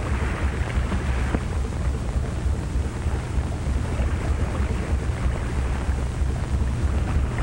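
Steady rushing noise of wind and sea with a deep, unbroken rumble underneath.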